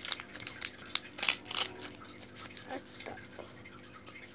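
A small white wrapper crinkling and tearing as it is picked open by hand, with several sharp crackles in the first two seconds, then quieter handling.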